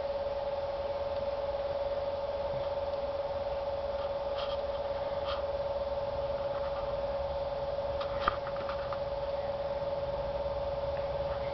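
A steady hum on one held tone, with a few faint clicks and one sharper click about eight seconds in.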